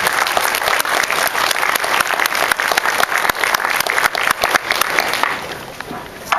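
Audience applauding, many hands clapping, dying down near the end.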